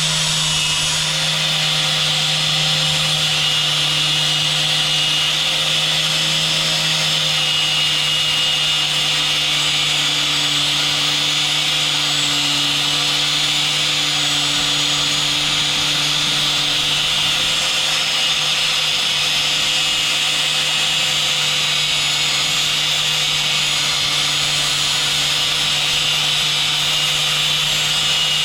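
Angle grinder running steadily under load, its wheel cutting through a steel coil spring from a strut.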